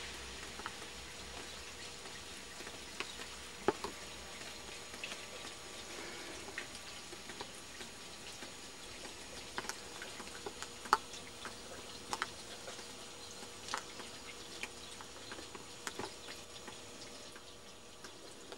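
Light rain: scattered drops tapping irregularly close to the microphone, a few a second, over a faint steady hiss.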